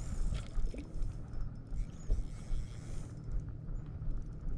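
Spinning reel being wound as a hooked bass is brought to the boat, with small scrapes and ticks over a steady low rumble of wind and water.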